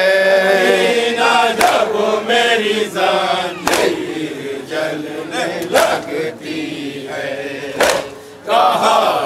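A group of men chant a noha (Muharram lament) together. Sharp chest-beating slaps (matam) fall about every two seconds.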